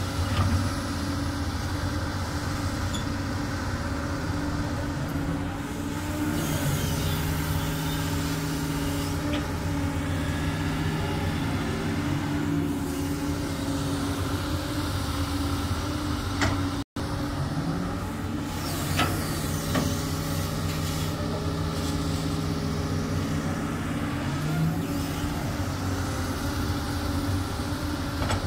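Doosan DX200 excavator's diesel engine running continuously, its pitch rising and falling several times as it works under load. A few short knocks come through over it.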